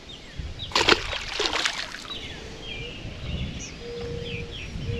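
Splash of a small bass dropped back into the water about a second in, with a smaller splash after it, then several short bird chirps.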